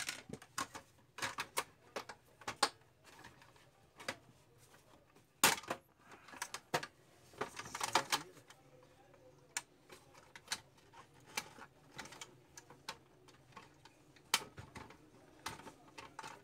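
Irregular small clicks, taps and knocks as printer parts are handled during a repair, with a short scrape about eight seconds in.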